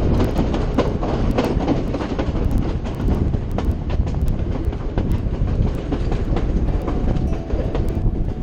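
Passenger train running at speed, heard from outside the carriage window: a steady rumble and rushing noise, with the clickety-clack of the wheels knocking over the rail joints.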